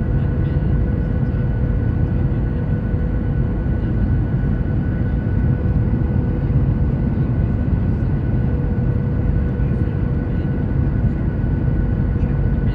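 Steady rumble of an airliner cabin, with the jet engines' even drone and a faint steady whine over it.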